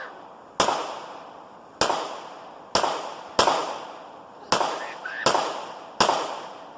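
Glock 19 9mm pistol fired seven times in steady succession, about one shot a second, each crack trailing off in a short echo.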